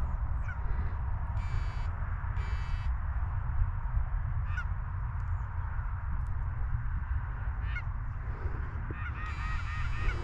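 Canada geese honking: two clear honks about a second and a half and two and a half seconds in, a few short calls between, and a run of several honks near the end, over a steady low rumble.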